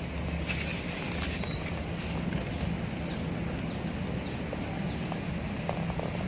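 Outdoor ambience with a steady low hum, and a bird giving a run of about five short, high notes falling in pitch, from about two and a half seconds in; a few faint clicks.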